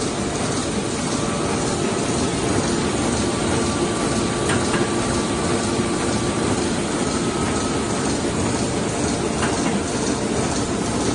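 Offset printing press machinery running: a steady mechanical running noise with a faint high whine over it.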